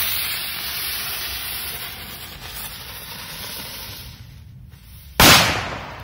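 Rozochka (rose) firecracker hissing as it burns, fading over about four seconds, then a single sharp bang about five seconds in.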